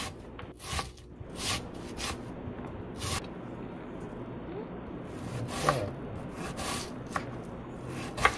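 Knife slicing through a red onion and striking a wooden cutting board: about nine crisp, irregularly spaced cuts.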